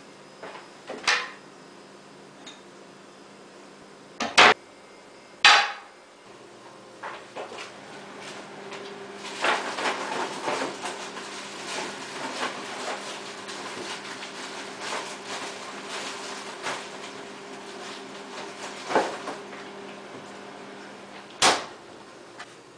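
Kitchen handling sounds. A few sharp knocks come first, then a long stretch of small clicks and clatter as things are rummaged in the refrigerator's freezer compartment, over a steady fridge hum. Near the end comes one loud knock, fitting the freezer door being shut.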